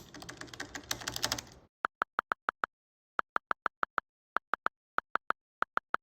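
Plastic calculator keys pressed in quick succession. About a second and a half in, they give way to runs of short, identical electronic beeps, three to five at a time, against dead silence.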